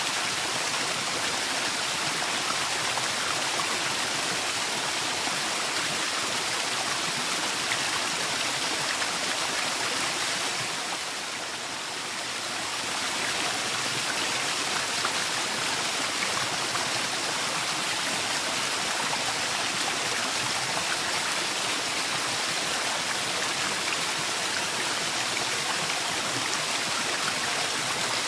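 Waterfall: a steady, even rush of falling water, dipping briefly a little softer about eleven seconds in.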